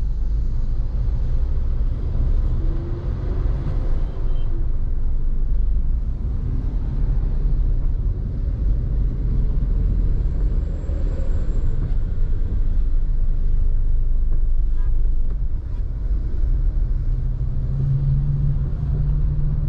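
Steady low rumble of a vehicle driving through city road traffic, with tyre and engine noise. A low steady hum comes in during the last two seconds.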